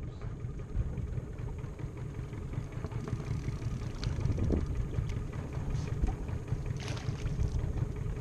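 Wind buffeting the camera microphone in a steady, fluttering low rumble, with a few faint clicks and knocks.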